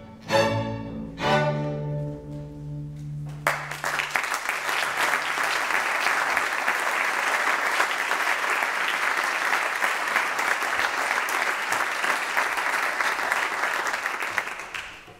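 A youth string orchestra plays its closing chords, the last one held for about two seconds. About three and a half seconds in, audience applause breaks out suddenly and goes on steadily, then fades out near the end.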